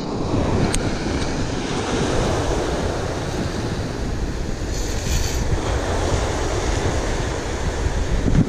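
Steady rush of surf breaking on the shore, mixed with wind blowing across the microphone.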